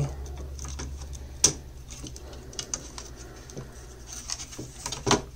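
Small clicks and light taps of a laptop motherboard being lifted and worked loose from its plastic bottom chassis, with one sharp click about one and a half seconds in and another just after five seconds.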